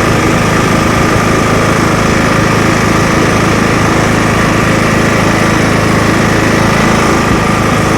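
Ride-on lawnmower engine running steadily at an even speed.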